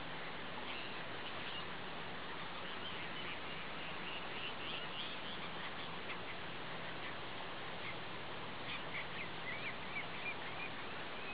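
Ducks quacking in short repeated calls over a steady background hiss, in two bouts, the second near the end louder.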